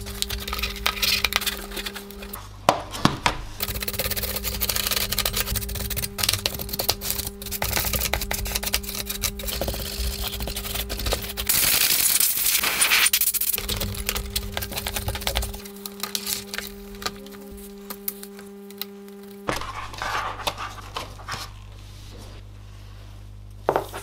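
Close-up handling of a plastic PC case front panel: a microfibre cloth rubbing over the glossy plastic with scattered clicks and taps, then a hiss of spray lasting about two seconds, some twelve seconds in. A steady low hum runs underneath, breaking off at the cuts.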